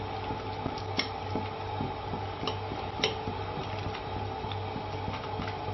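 Chopsticks clicking against a porcelain bowl and the rim of a clay pot as fish slices are transferred into boiling congee: a few sharp clicks over a steady low hum.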